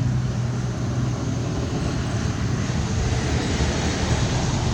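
A steady low mechanical rumble with a constant hum, like a running engine.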